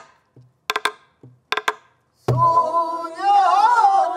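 Buk barrel drum keeping a slow pansori rhythm: short low thumps on the drumhead and sharp stick clicks, two at a time, on the wooden shell. About two seconds in, a deep drum stroke comes with the start of singing of the pansori phrase.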